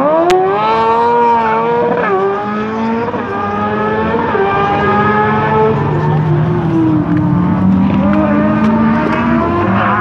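Engine of a single-seat rally buggy revving hard under acceleration, its pitch climbing and then dropping at each gear change, several times over. A single sharp click comes just after the start.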